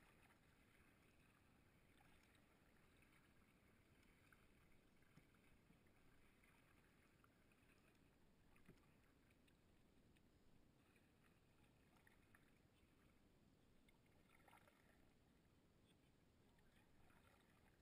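Near silence: a canoe gliding on calm river water, with faint water sounds and a few soft splashes now and then.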